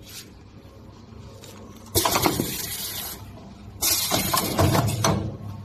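Semi-automatic nonwoven wipe packing machine cycling, giving two loud hissing bursts about two seconds apart, each a second or so long, like its pneumatic cylinders releasing air.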